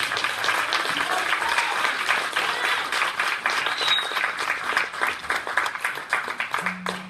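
Congregation applauding: many people clapping at once. The clapping starts abruptly and dies away near the end.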